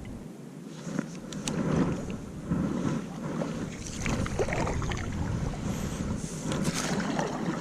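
Water lapping against a kayak hull, with wind buffeting the microphone and a few light clicks and knocks scattered through.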